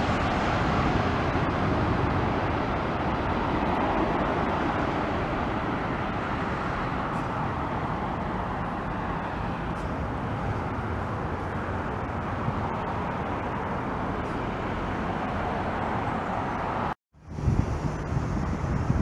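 Jet engine roar of a Boeing 777 airliner passing low on landing, settling into a steady, slowly fading rumble as it touches down and rolls out. About two seconds before the end the sound cuts out briefly, then picks up again with a low wind rumble on the microphone.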